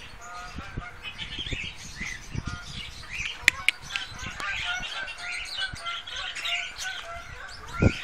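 Birds chirping and twittering in many quick, short notes. There are two sharp clicks about three and a half seconds in and a thump near the end.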